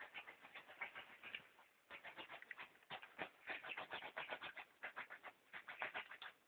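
Chihuahua digging at a soft bedspread to bury her bone, scratching and rustling the fabric in a fast, faint run of strokes, with a short break about two seconds in.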